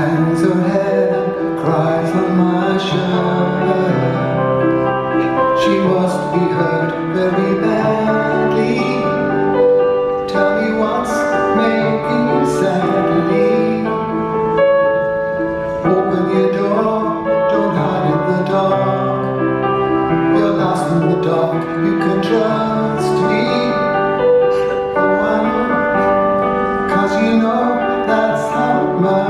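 A slow, gentle piano ballad with a man singing over the piano.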